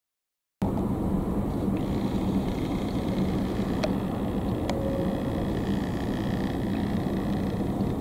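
Steady low outdoor rumble with a constant low hum, cutting in abruptly about half a second in, with a couple of faint clicks near the middle.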